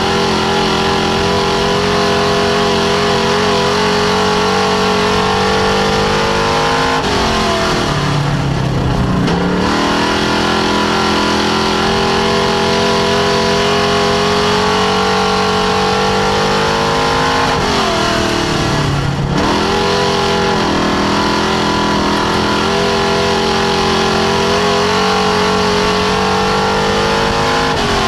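Dirt-track race car engine heard from inside the cockpit, held at high revs down the straights. The pitch drops as the driver lifts for the corners, about seven seconds in, about eighteen seconds in and again at the end, then rises as the car accelerates back out.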